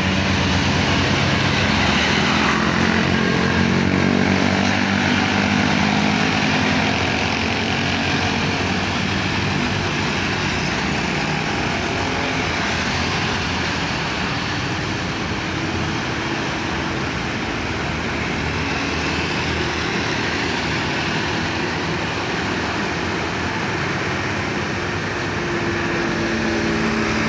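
Diesel tour bus engines passing: a droning engine that fades over the first several seconds into steady road and traffic noise, with another engine drone coming in near the end.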